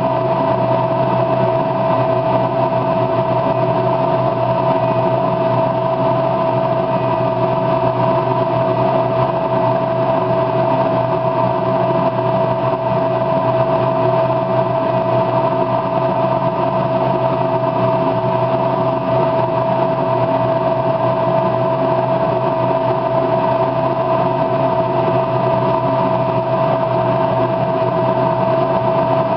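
Steady machine hum with one strong constant tone over a band of noise, unchanging throughout.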